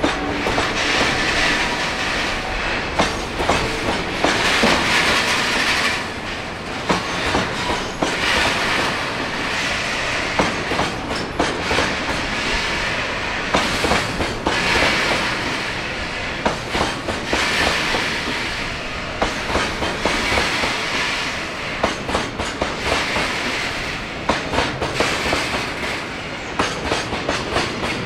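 Freight train of Taki-series oil tank wagons rolling past on steel rails, the wheels clicking over rail joints in quick clusters. A hiss swells and fades about every three seconds as each wagon goes by.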